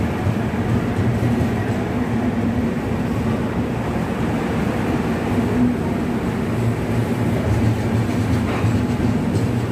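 LHB passenger coaches of an express train rolling past along the platform as the train pulls in: a steady, unbroken rumble of wheels on the rails.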